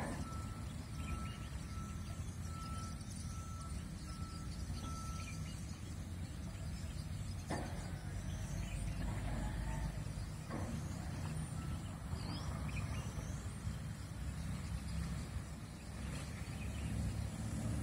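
Outdoor ambience dominated by a steady low rumble of distant road traffic. For the first five seconds or so there is a run of evenly spaced high beeps at one pitch, with a few faint bird chirps later.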